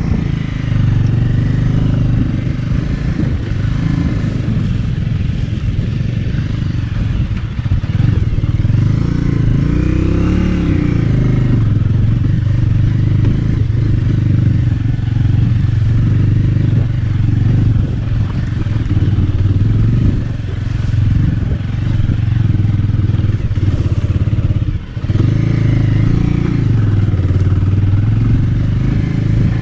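Bajaj Avenger 220's single-cylinder engine running as the motorcycle rides a rough off-road track, its pitch rising and falling with the throttle, most clearly about ten seconds in.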